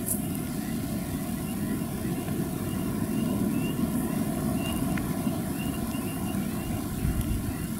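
M62-series freight diesel locomotive approaching from a distance, its two-stroke V12 diesel engine giving a steady low drone that grows slightly louder partway through.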